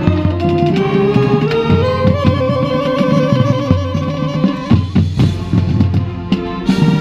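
Marching band playing its halftime show, with saxophones and brass holding chords over drums. Around five seconds in, the low notes briefly drop out under a few sharp drum hits.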